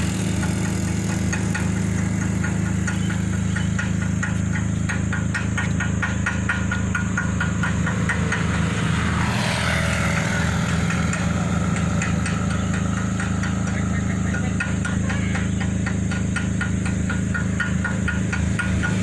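Excavator's diesel engine running steadily, with a fine rapid ticking over its hum and a brief swell of noise about halfway through.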